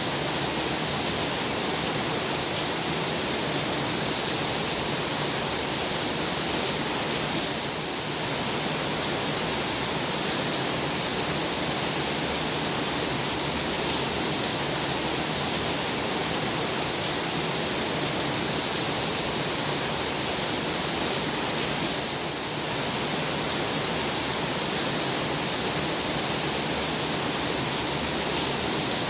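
Heavy rain pouring down steadily as a dense, even hiss, easing slightly for a moment twice.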